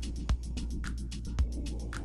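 Background music with a steady electronic beat: deep kick-drum thumps alternating with snare hits about every half second, over fast hi-hat ticks and a steady bass.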